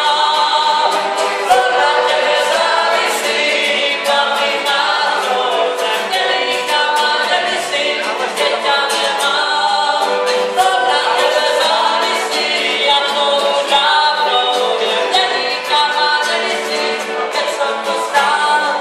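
A group of voices singing a song together without instruments.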